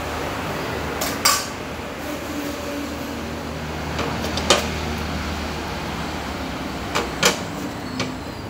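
A metal spoon clicking and knocking against a flat iron griddle while a pancake is lifted and turned. There are about six sharp knocks, loudest about a second in and again midway, over a steady low rumble.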